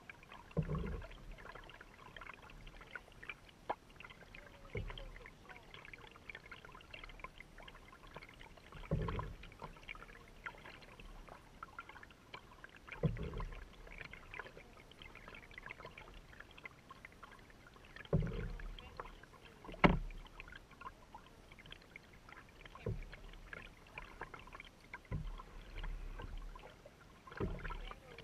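A canoe being paddled through choppy lake water: small waves splash and slap against the hull. A heavier slap comes every few seconds.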